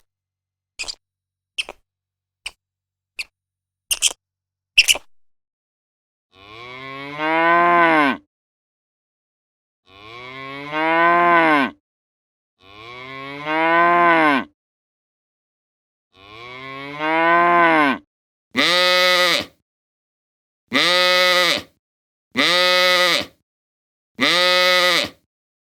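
Cattle mooing: four long, drawn-out calls that rise and fall in pitch, then a run of five shorter calls at even spacing. A few brief squeaks or clicks come in the first five seconds.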